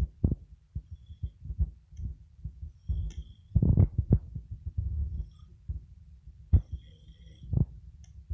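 A man snoring: low, rattling, throbbing pulses, loudest in a longer snore about three and a half seconds in, with a few sharp thuds near the end.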